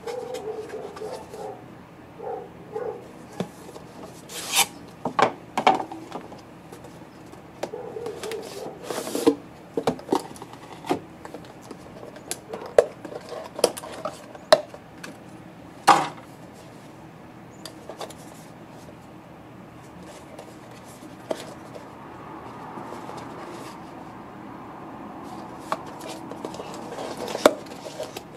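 Cardboard box and clear plastic watch display case being handled and opened: rubbing and sliding, with a run of sharp plastic clicks and crinkles in the first half.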